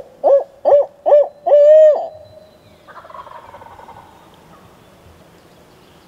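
Barred-owl hooting, loud and close: a quick run of short rising-and-falling hoots, then a longer drawn-out final hoot, in the 'who cooks for you' rhythm. About a second after it, a fainter rough, rattling call, a turkey gobbling in answer.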